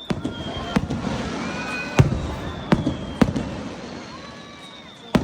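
Aerial fireworks shells bursting overhead: about six sharp bangs with rumbling echoes, the loudest about two seconds in.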